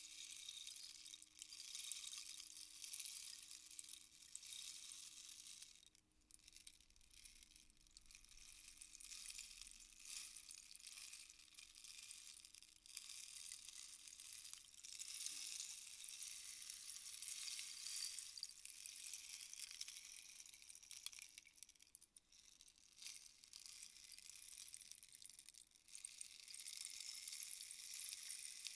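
Rainstick being slowly tilted: the soft, continuous rushing hiss of beads trickling down the tube, swelling and easing, with brief breaks where the stick is turned over.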